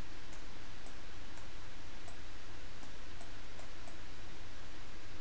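Faint, short computer mouse clicks at uneven intervals, about eight of them, over steady microphone hiss and a low hum.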